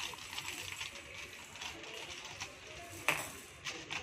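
Clear plastic bag crinkling and rustling as small plastic toy balls are unwrapped, with a sharp click about three seconds in and a few lighter clicks near the end.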